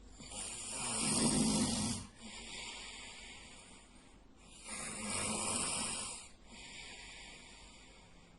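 A sleeping man snoring loudly: two heavy snores about four seconds apart, each followed by a quieter breath lasting about two seconds.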